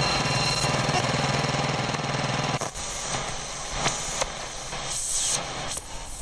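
Edited noise sound effect under a title card: a dense, fast-rattling static that drops away about two and a half seconds in. Quieter hiss follows, with a couple of sharp clicks and a downward swish near the end.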